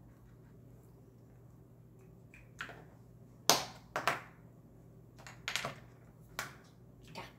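A faint steady hum, then from about two and a half seconds in a run of about seven sharp clicks and taps: a felt-tip marker and its cap being handled and set down on a wooden table.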